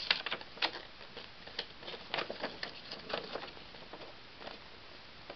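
A folded glossy paper poster being unfolded by hand, its paper crinkling and rustling in short, irregular crackles. The crackles thin out after about three and a half seconds.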